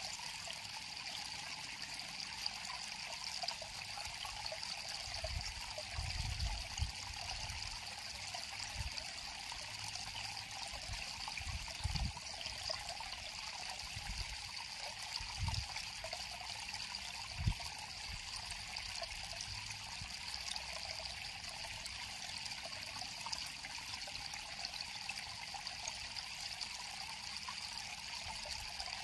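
River water flowing steadily, with a continuous babbling and trickling. A few dull low thumps come through in the middle.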